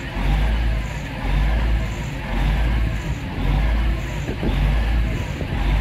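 TransPennine Express Class 68 diesel locomotive approaching, its engine running, heard with a regular throbbing about once a second.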